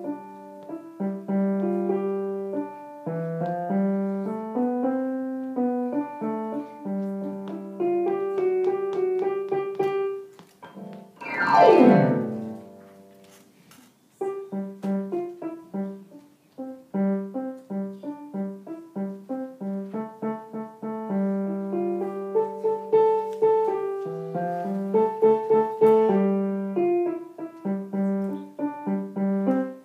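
Digital piano played by a child: a simple melody over repeated low notes. About twelve seconds in, a fast downward glissando sweeps down the keys, followed by a brief pause before the playing starts again.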